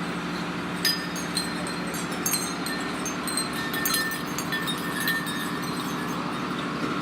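Light metallic tinkling, a few small bell- or chime-like strikes that ring briefly, over a steady droning hum.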